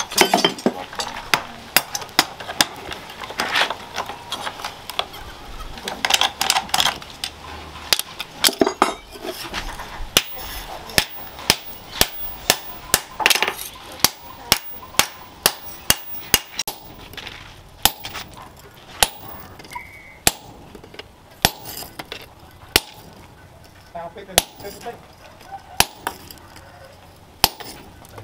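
Hammer blows on a hot steel machete blank lying on a steel post anvil: a long run of sharp, ringing clinks, sparser in the first few seconds and then coming steadily at more than one a second.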